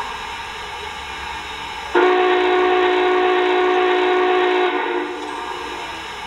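Steam locomotive whistle from the Proto-Sound 3.0 sound system of an MTH O scale Union Pacific Big Boy model: one loud blast of about three seconds, starting about two seconds in, over a steady hiss.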